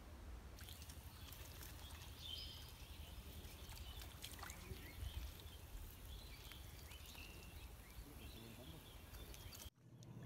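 Faint outdoor ambience at a pond: a low steady rumble with scattered faint bird chirps and a few small clicks, cutting off abruptly near the end.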